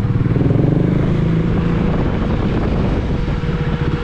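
KTM 390's single-cylinder engine running. It is a little louder and smoother for the first couple of seconds, then settles back into its pulsing idle beat near the end.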